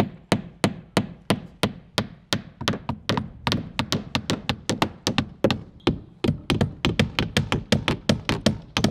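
Hammers driving nails through the slots of a new window's nailing flange into the wall, sharp strikes about three a second, growing quicker and overlapping from about three seconds in as two hammers work at once.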